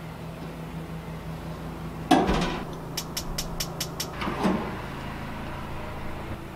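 Gas grill's push-button igniter clicking six times in quick succession, about five sharp clicks a second. A loud knock comes just before the clicks and a duller thump just after, over a steady low hum.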